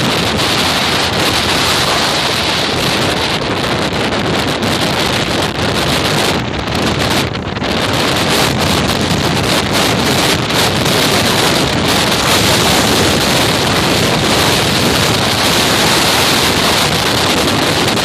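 Strong wind buffeting the microphone in a loud, steady rush, with choppy harbour waves slapping against a concrete seawall underneath.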